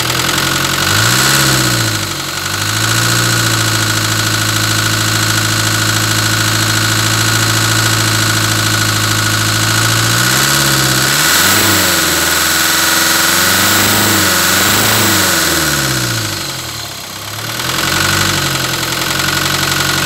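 Land Rover 200Tdi 2.5-litre four-cylinder turbo-diesel being revved. A quick blip comes about a second in, the engine is held at raised revs for several seconds, and a string of rising-and-falling revs follows before it drops back. Under revs there is a knock that the owner says is definitely engine related but cannot place; at tick-over it is not heard.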